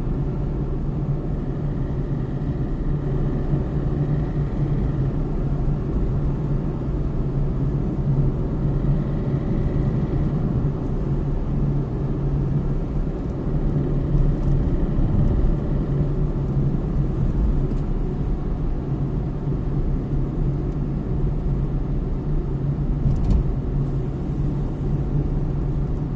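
Peugeot 107's 1.0-litre three-cylinder petrol engine running, briefly louder about halfway through, with a ticking noise that the owner says comes when the gas pedal is pressed. The cause is unknown to the owner; the oil level has been checked.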